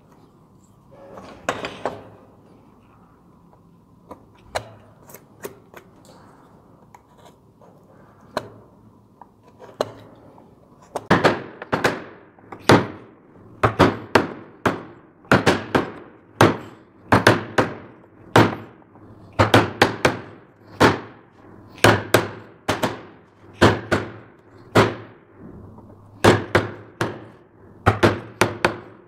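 Mallet striking a wood-carving gouge as it cuts into a wooden moulding: a steady run of knocks, about one or two a second, starting about ten seconds in. Before that, only faint scrapes and a few light knocks as the gouge is worked by hand.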